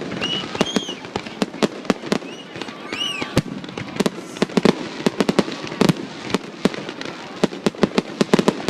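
Fireworks going off: a rapid, irregular string of sharp bangs and cracks, several a second.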